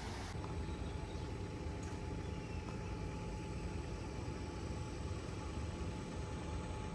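Steady outdoor harbour background: a constant low rumble and hiss with a faint, even machine hum, like a distant engine or motor running.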